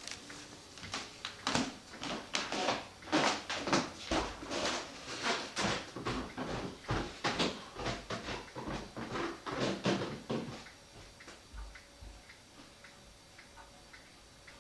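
Irregular knocks, taps and rustles of hands handling the wooden and paper parts of a cuckoo clock bellows for about ten seconds, then a clock ticking steadily and faintly.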